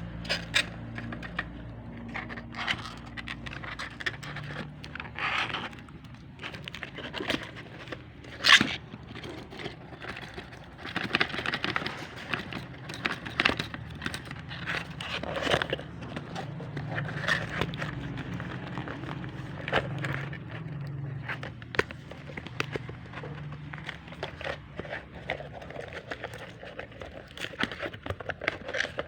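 Webcam packaging being opened and handled: irregular scraping and crinkling with frequent clicks and knocks, the sharpest knock about eight seconds in.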